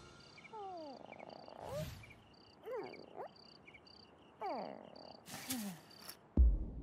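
Cartoon night ambience of crickets chirping in short regular pulses, over which a cartoon bird gives several short falling vocal sighs. There are a couple of soft rustles, then a sudden heavy thump near the end as the bird drops down onto its nest.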